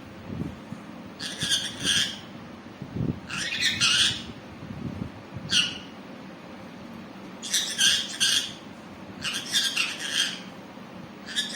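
Green parrot squawking: about six short, harsh calls, each under a second, spaced roughly two seconds apart.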